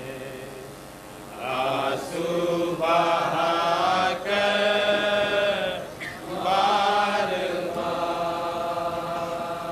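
Men chanting a slow Urdu nauha, a Muharram lament, in long drawn-out phrases with held notes, swelling up about a second and a half in.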